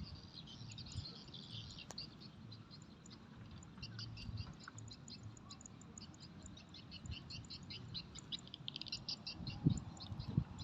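Small birds chirping and twittering, many short high calls repeating throughout and thickest in the second half, with a couple of low thumps near the end.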